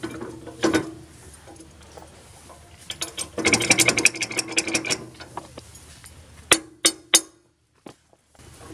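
Ratchet spanner clicking rapidly for about a second and a half, then three single sharp clicks, as the bolts holding the power tiller's rotary blades to the rotor flange are tightened.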